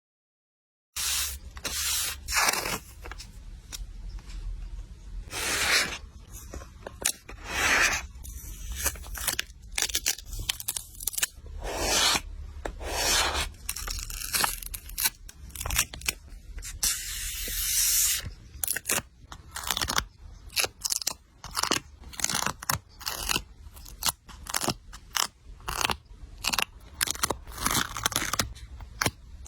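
Close-up paper-crafting sounds of journal-making: irregular snips, rustles and tearing of paper, stickers and tape, with rubbing and scraping as pieces are pressed onto the page, and a longer tearing or peeling sound about two-thirds of the way in.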